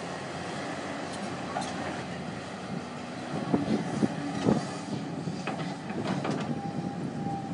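Excavator running at a dig site, with several sharp metallic clanks and knocks from the machine at work, bunched together in the middle of the clip. Near the end a thin, steady whine comes in.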